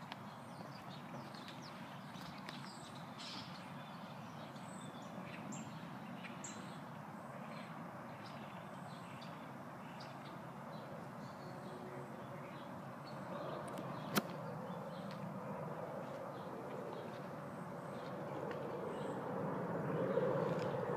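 Outdoor park ambience: a steady background hum with faint bird chirps. A single sharp click comes about two-thirds of the way through, and the hum swells near the end.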